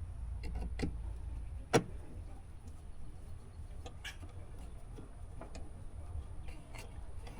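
Scattered light plastic clicks with one sharp click about two seconds in, from handling an already-cracked plastic fitting on a Datsun 280ZX door, over a low steady rumble.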